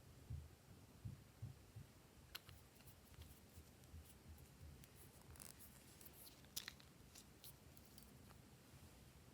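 Faint handling of slime: a few soft low thuds, then scattered sharp clicks and crackles, loudest around the middle.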